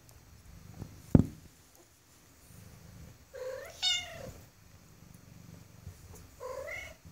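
Bengal kittens mewing twice, thin high calls that rise and fall, over a low purr; a single thump about a second in.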